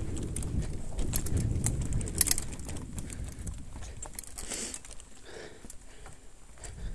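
Mountain bike rolling over a forest trail: a low tyre rumble and rattling clicks for the first couple of seconds, then quieter with scattered knocks.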